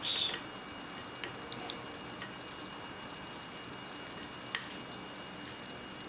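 A heavy-duty lock pick working the pins of a padlock's keyway under tension. A brief scrape at the start is followed by a few faint ticks, then one sharper click about four and a half seconds in.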